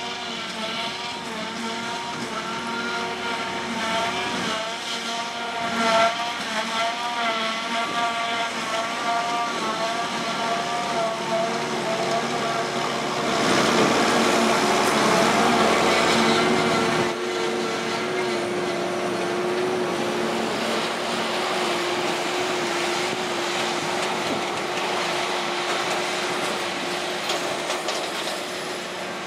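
John Deere 7450 self-propelled forage harvester chopping grass for silage, with tractors pulling trailers alongside: engines running under load with a wavering, whining note. The sound grows louder and rougher for a few seconds near the middle as a tractor runs close by.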